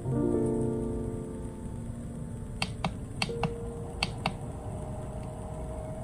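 Gentle background music with held notes, and about six light, sharp clicks between roughly two and a half and four and a half seconds in from a hand pressing the button on a small mist humidifier.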